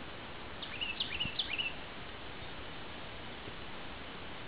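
Steady rolling hiss of a bicycle riding along a paved trail, with a songbird singing one short phrase of quick, sweeping high notes about a second in.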